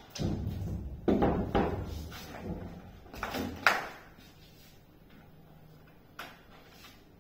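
A run of heavy wooden thumps and sharp knocks from a carpenter climbing down off a wooden trestle stand, about half a dozen over the first four seconds, the sharpest knock near the end of the run. One faint knock follows a couple of seconds later.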